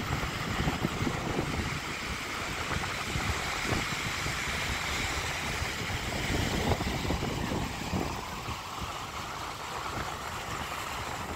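Strong wind buffeting the microphone over the steady hiss of waves breaking on a sandy beach.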